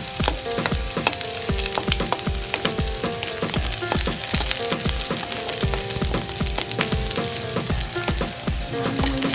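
Garlic and onion sizzling in hot oil in a frying pan, at the stage where the garlic is starting to turn fragrant.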